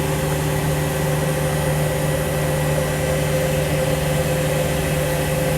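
Steady machine hum: a constant low drone with a higher tone above it and a faint hiss, unchanging throughout.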